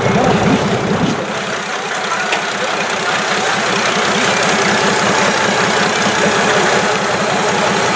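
Mercedes 270 CDI five-cylinder diesel in a Range Rover Classic trayback running at low revs with a diesel clatter, as the truck creeps nose-first down a steep dirt bank. The deep throb eases slightly about a second in, then holds steady.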